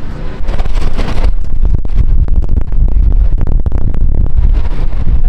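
Wind buffeting the camera microphone: a loud, irregular low rumble with gusty crackles, and a brief stronger gust of hiss about half a second to a second in.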